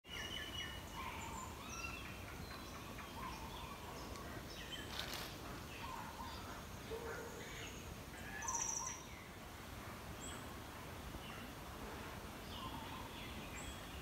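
Tropical forest birds calling: many short overlapping chirps and whistled notes, with a brief high buzzy trill just past halfway, over a steady low rumble. A single sharp click about five seconds in.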